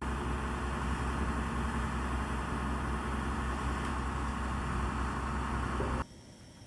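Steady outdoor background noise: a low rumble under a hiss, with no distinct events, cutting off abruptly about six seconds in.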